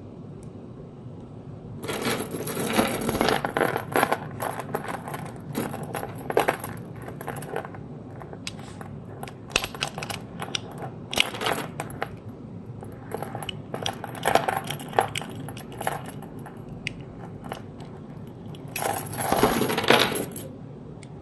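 Metal utility knife being handled, its metal parts clicking, clinking and rattling in irregular bursts with a bright metallic ring. The busiest stretches are early on and a loud burst near the end.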